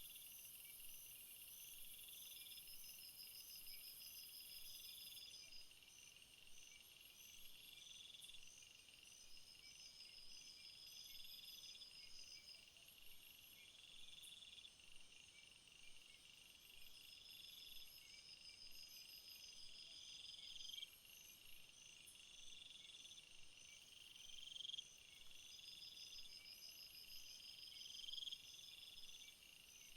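Faint chorus of field insects chirping in a summer meadow: several overlapping high, rhythmic trills, one of them a short phrase repeating every two to three seconds.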